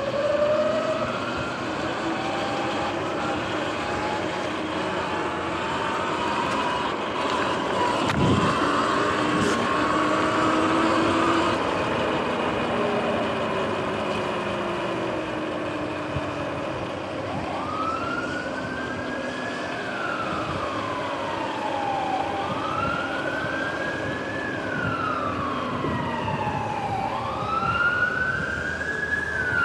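An emergency vehicle's siren wailing, its pitch rising and falling about every four seconds from about halfway through and growing louder toward the end. Underneath is the steady hiss of riding along a rain-wet path.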